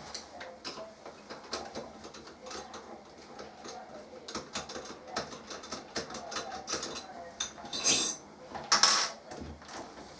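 Screws being undone from a door handle's backplate with a screwdriver: a string of small metallic clicks and ticks. Two louder rasping sounds about a second apart come near the end as the handle comes loose from the door.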